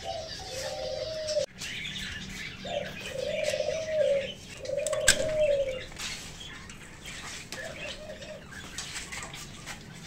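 A dove cooing: about four drawn-out coos in the first eight seconds, with small cage birds chirping faintly behind. A single sharp click sounds about five seconds in.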